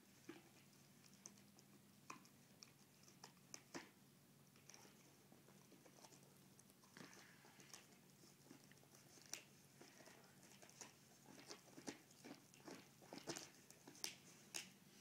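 Dogs gnawing and mouthing at a bone: faint scattered clicks and crunches of teeth on bone, more frequent in the second half.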